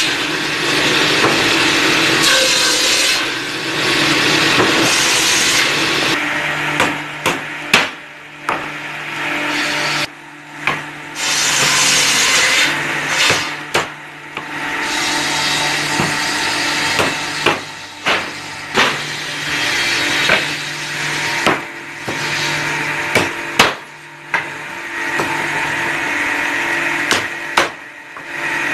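Woodworking sounds: a power tool running on wood in stretches of a few seconds, with a steady low hum under the noise, broken by pauses and many sharp knocks and taps.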